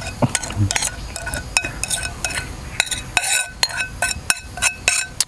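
A utensil repeatedly clinking and scraping against a dish as food is stirred and mixed: irregular short clinks with a brief ring, about three or four a second.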